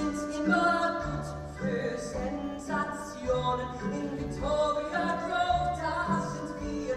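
Musical-theatre song: voices singing over a band, with a bouncing bass line pulsing at a steady beat.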